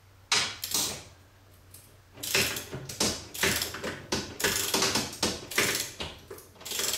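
Ratcheting socket wrench clicking in short bursts as a mounting bolt is turned up into the ceiling: two bursts, then a gap, then a steady run of back-and-forth strokes from about two seconds in.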